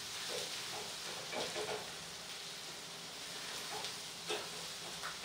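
Onion and tomato base for a fish curry frying in a kadai on a gas stove: a soft, steady sizzle, with a spatula scraping through it now and then as it is stirred.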